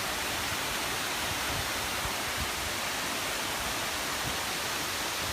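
Waimoku Falls, a tall waterfall, pouring with a steady, even rushing noise.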